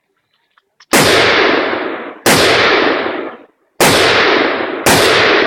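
Four rifle shots, one to one and a half seconds apart, each a sharp crack followed by an echo that dies away over about a second.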